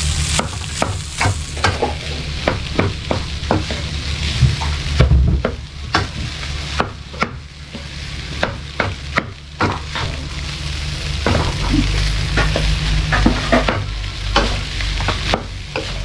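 Wooden spatula stirring and tossing fried rice in a wok over a sizzle, with many short sharp scrapes and taps against the pan at an irregular pace.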